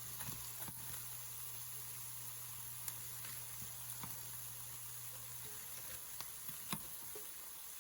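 Mashed potato fries frying in hot oil: a steady sizzle with scattered pops and crackles. A low hum runs underneath and stops about seven seconds in.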